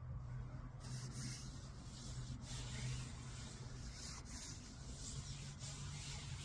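Down jacket fabric rustling and rubbing close to the microphone in uneven swishes, over a low steady hum.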